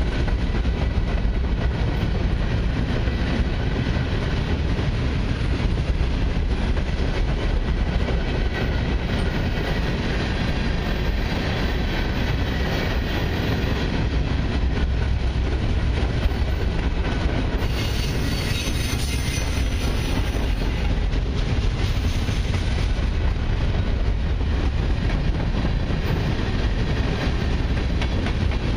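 Freight cars of a long mixed train rolling steadily past: covered hoppers, autoracks and tank cars, with wheels clattering over the rail joints. There is a brief rise in higher-pitched rail noise about two-thirds of the way through.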